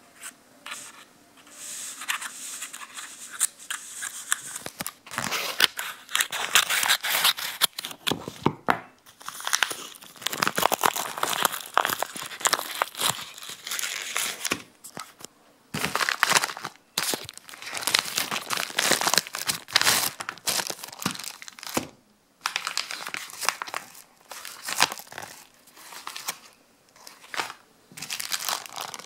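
Paper mailing envelope being torn open by hand and crumpled, in bursts of tearing and crinkling with short pauses between them. Near the end a clear plastic zip bag is handled and crinkles.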